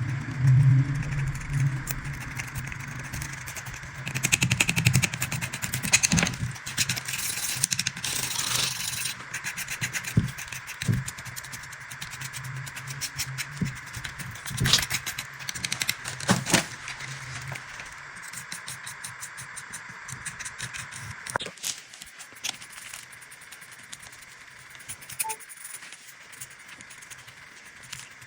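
Hand tools working on the rusty metal parts of an old alarm clock: a run of sharp clicks, knocks and scraping, busiest in the first half and thinning out after about twenty seconds.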